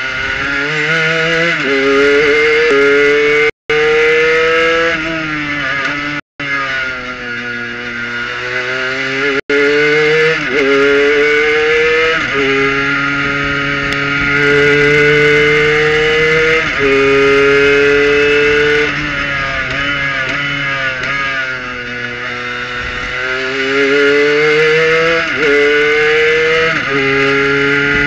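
Race car's Kohler engine heard from the cockpit, accelerating hard out of a slow corner and rising in pitch through a series of quick upshifts. It eases off and then climbs again through more shifts near the end. The sound cuts out completely for an instant three times in the first ten seconds.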